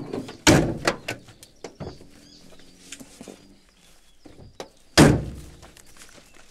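Heavy door of a Chevrolet Impala thudding shut about half a second in, followed by a few small knocks and clicks. A second loud slam comes at about five seconds, with a short ring after it.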